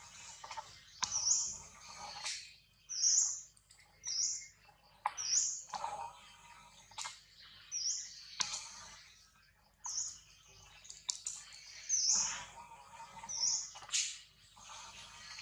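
A bird chirping over and over, short high calls coming roughly every one to two seconds, with scattered sharp clicks between them.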